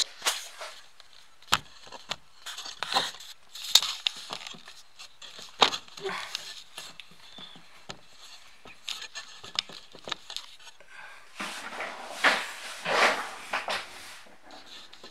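Close handling noise of a camera being moved and set in place: scattered sharp clicks and knocks with soft rustling. A longer stretch of rustling comes about three-quarters of the way through.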